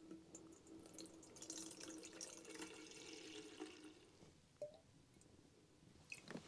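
Faint trickle of distilled water being poured into a carpet cleaner's clean-water tank, running for a few seconds and then stopping.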